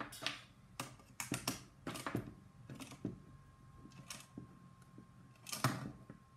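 Irregular clicks and taps of hard plastic parts and small screws and nuts being handled by hand while fastening hardware into a 3D-printed blaster stock, with one louder knock about five and a half seconds in.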